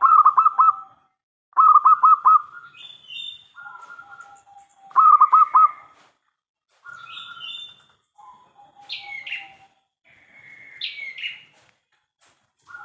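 Zebra dove (perkutut) cooing: three loud phrases of quick staccato coos, at the start, about a second and a half in, and about five seconds in, with softer dove calls between them. Higher, falling chirps of other birds come in the second half.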